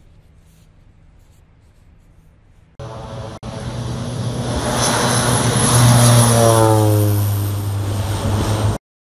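Single-engine propeller floatplane on amphibious floats taking off. The engine and propeller start about three seconds in, grow louder as it rolls down the runway and lifts off, then drop in pitch as it passes and climbs away. The sound cuts off suddenly just before the end.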